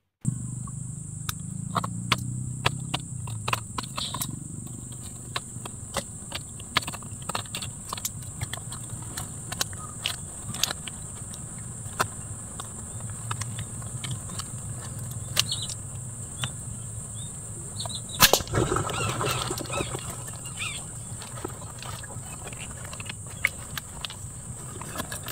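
A steady high-pitched insect drone with scattered small clicks and ticks over it, and a sharper click about eighteen seconds in followed by a couple of seconds of rustling.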